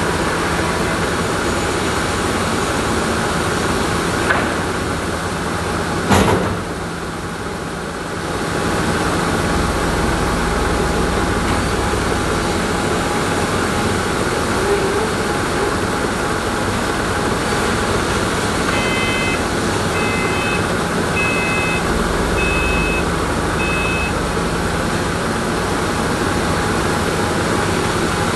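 Sawmill machinery running steadily, with a sharp knock about six seconds in and a run of five short electronic beeps about two-thirds of the way through.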